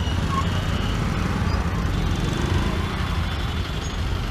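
Auto-rickshaw's small engine running as it drives through busy street traffic: a steady low rumble heard from inside the open cab.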